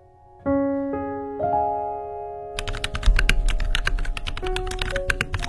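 Piano notes struck one after another and held. About halfway through, rapid clicking like typing on a computer keyboard comes in over the held notes, with a low rumble beneath.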